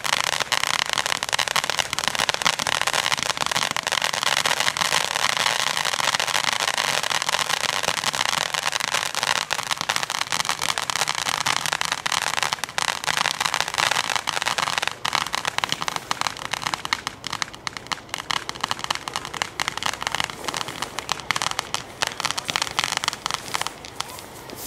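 Ground-level crackling fireworks effect popping densely: a rapid, continuous stream of small crackles. It thins out after about fifteen seconds and dies down near the end.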